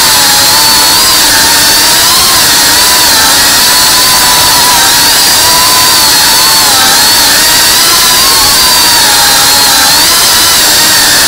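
Tiny whoop FPV drone's small brushless motors and propellers whining loudly over a steady hiss, the pitch wavering up and down as the throttle changes.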